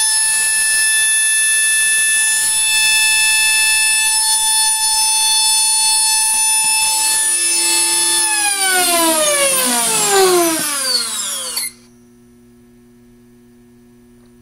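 High-speed spindle motor running with a loud, steady high-pitched whine, then spinning down from about eight seconds in, its whine falling in pitch until it stops just before twelve seconds. A low steady hum is left after it stops.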